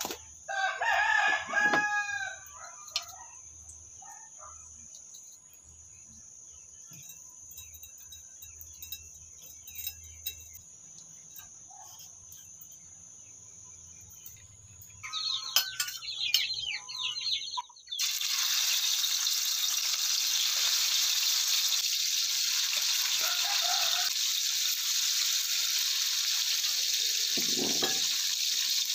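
A rooster crows once, about a second in, and further fowl or bird calls follow around the middle. Then, after an abrupt change, a tap runs water steadily.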